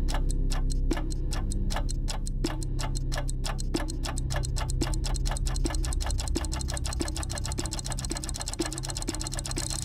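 Ticking-clock sound effect whose ticks speed up, from about four a second to nearly twice that, over a steady low drone, with a deeper knock at a slower beat.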